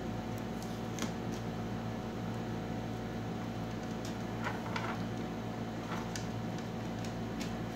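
Steady mechanical hum of a fan or air conditioner, with a few light clicks and rustles of hands handling a flat ribbon cable and circuit board on the back of a TV panel.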